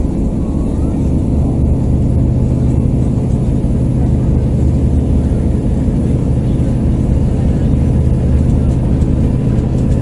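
Passenger train running along the track, heard from inside the air-conditioned carriage: a steady low rumble with a constant hum.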